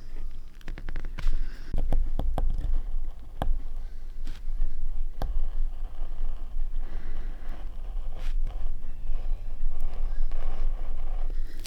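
Close scraping and handling noise, with scattered sharp clicks and knocks of tools and materials on a work table during linocut printmaking.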